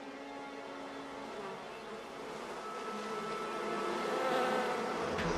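A swarm of bees buzzing around a knocked-down nest, many wavering tones at once, growing steadily louder.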